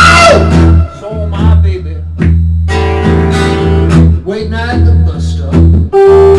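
Acoustic guitar strummed together with an electric guitar in a live jam, with a man singing into a handheld microphone.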